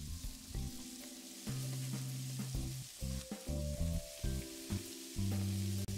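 Onion, garlic and green bell pepper sizzling in hot oil in a skillet, with a steady hiss, as the chopped pepper is slid in from a plastic cutting board with a few light knocks.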